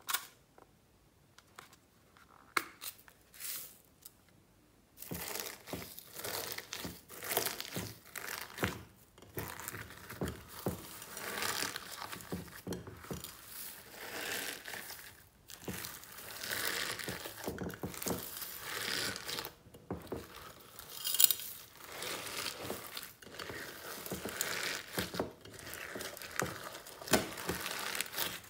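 Hands kneading and folding glossy white slime mixed with glitter, sequins and small beads, a continuous crackling and squishing. Before it, a few quiet seconds with a couple of sharp clicks.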